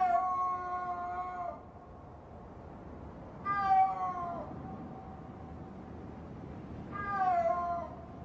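A snow leopard calling in the mating season, the call adult snow leopards give to each other only at that time of year. Three long drawn-out calls come a few seconds apart, the second and third falling in pitch, and each leaves a faint lingering tail.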